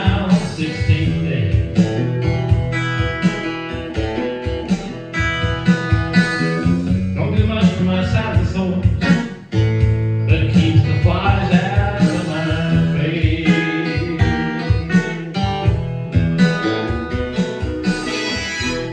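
Acoustic blues-country song: a steadily strummed acoustic guitar with a bending melody line over it.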